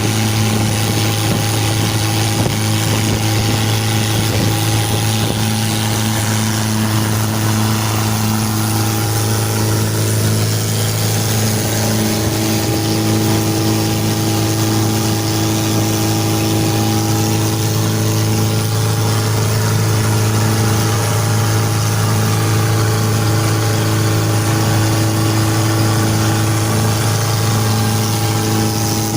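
Mitsubishi L300 engine running at a steady idle, its hum holding one constant pitch throughout.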